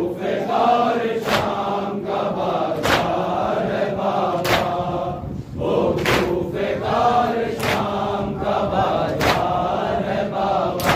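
A group of men chanting a nauha in unison, with a sharp, in-time strike of chest-beating (matam) about every one and a half seconds.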